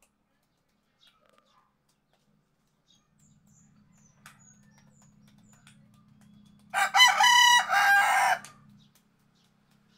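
A rooster crowing once, about seven seconds in: a single loud crow lasting about a second and a half.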